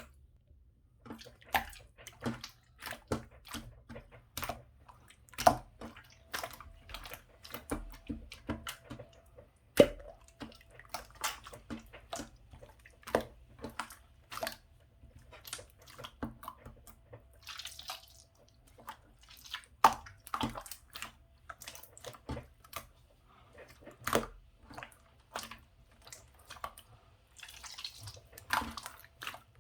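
Drink-making sounds: many irregular clicks, taps and clinks of glass, ice and utensils, with two short hissing rushes of poured liquid, one a little past halfway and one near the end.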